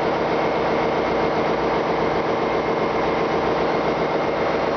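Ship's engine-room machinery running: a loud, steady mechanical drone with a steady whine held over it.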